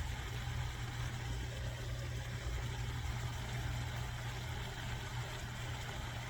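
Steady low hum with a faint even hiss from a pan of chicken and vegetable stir fry simmering on the stove.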